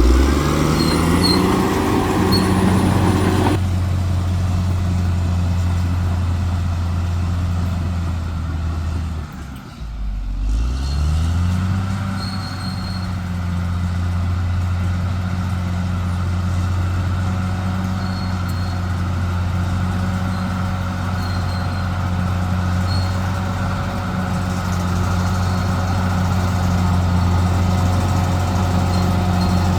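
Bulldozer's diesel engine running steadily under load. Its pitch drops briefly about nine seconds in and rises again as it revs back up.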